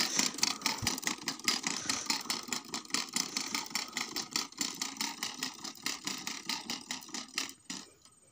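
Small engine of a walk-behind field machine running with a fast, rattling chug. It fades as the machine moves away and cuts off near the end.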